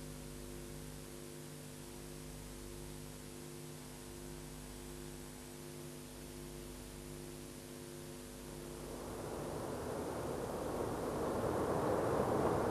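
Brünig line electric train: a steady hum of several tones, then from about nine seconds in a rushing noise that swells louder toward the end.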